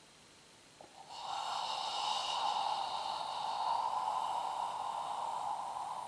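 A man's long, slow exhalation through a wide-open mouth, a steady breathy out-breath starting about a second in and held to the end. It is the deliberately drawn-out out-breath of the Katsugen Undo solar-plexus release exercise.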